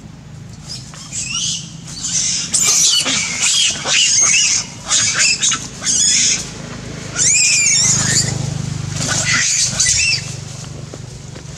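Young long-tailed macaques screaming: a string of shrill squeals and screeches that slide in pitch, on and off from about a second in until near the end.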